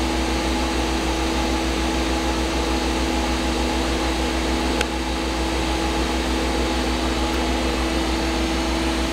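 Okuma MAB-80H horizontal machining center's spindle running steadily at high speed, about 4000 RPM: a constant hum with several held tones over a hiss. A single faint tick about five seconds in.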